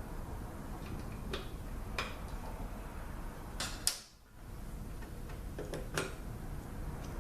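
Scattered light clicks and taps of small metal parts and tools as the pressure regulator valve train is worked out of a 6R80 transmission valve body, over a steady low hum. A sharp pair of clicks comes a little before the middle.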